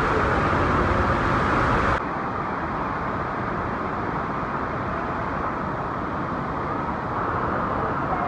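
Steady rushing roar of Niagara's Horseshoe Falls, first heard from inside a tunnel that opens onto the falling water. About two seconds in it changes suddenly to a softer, duller roar from an open viewpoint beside the falls.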